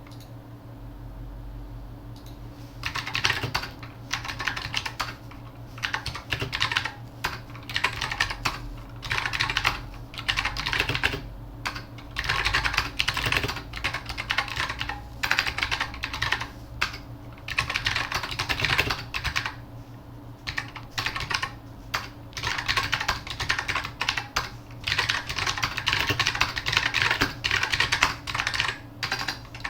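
Mechanical keyboard with Matias Click switches being typed on, rapid key clicks in bursts of a second or two with short pauses between, starting about three seconds in.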